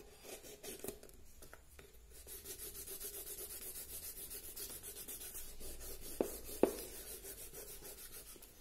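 Folded paper rubbed back and forth over oil pastel on drawing paper, smudging and blending the colour: a steady run of quick, scratchy strokes that starts about two seconds in. Two short knocks come a little past the middle.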